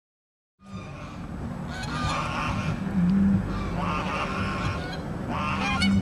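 Waterfowl calling in three separate bouts, about two seconds apart, over a steady low hum; the sound starts abruptly about half a second in.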